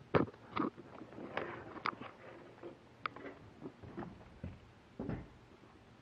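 Irregular taps, knocks and scuffs against OSB wood boards as the camera is moved and bumped along them. There are two sharp knocks right at the start and a duller thump about five seconds in.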